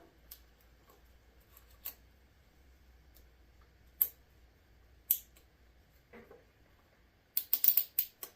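Plastic zip ties being fastened and trimmed: a few separate sharp clicks, then a quick run of clicks near the end.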